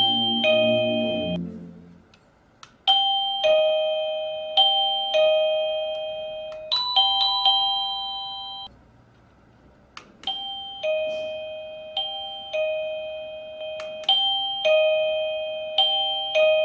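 Tunebird wireless doorbell receiver sounding its electronic ding-dong chime: two-note high-then-low tones repeated again and again, each note ringing out and fading. Midway a brief higher-pitched phrase plays, then after a pause of about a second and a half the ding-dongs start again.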